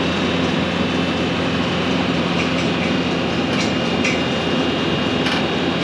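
Skid steer engine running steadily at close range, with a few faint clicks in the second half.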